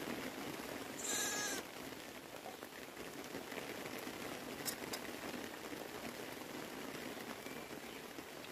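A sheep bleats once, briefly, about a second in.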